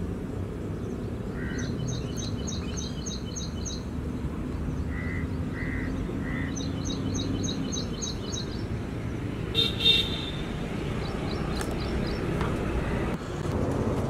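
City street ambience: a steady rumble of traffic with short car-horn toots, one louder horn blast about ten seconds in, and birds chirping in two quick runs of chirps.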